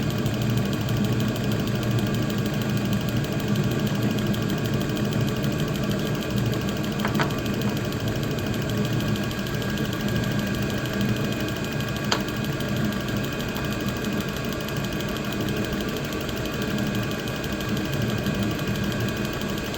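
Diesel air heater with a modified burn chamber running steadily: a low combustion rumble under the steady whine of its blower fan, with a sharp tick about 7 seconds in and another about 12 seconds in.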